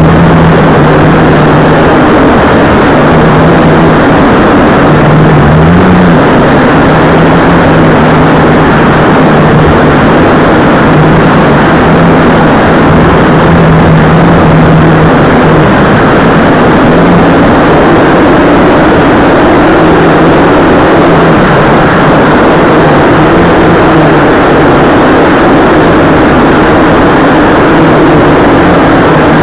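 Blade 350QX2 quadcopter's electric motors and propellers running in flight, heard from the camera mounted on the aircraft: a loud, steady drone with a constant low hum, its pitch shifting slightly now and then.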